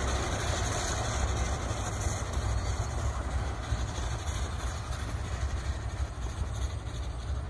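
Steam train's passenger coaches rolling away down the track, their wheel-on-rail rumble slowly fading as they recede, over a steady low rumble of wind on the microphone.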